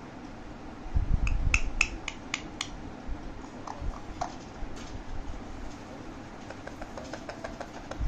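Alexandrine parakeet making a quick run of about six sharp clicks with its beak and tongue, then a few short, soft sounds.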